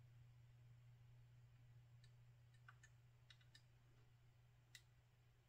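Near silence: a faint steady low hum, with a few faint small clicks from about two seconds in as fingers shift their grip on a plastic model car body.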